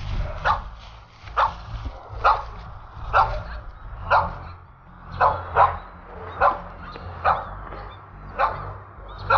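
Recorded puppy cries played through a phone speaker: short, high yelps repeating about once a second. The recording is a lure meant to draw a nursing mother dog to her litter.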